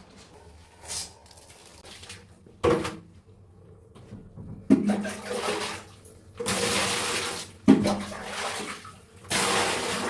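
Water splashing out in four separate pours, each starting with a thump and running for about a second. The water is being sluiced out to rinse during cleaning.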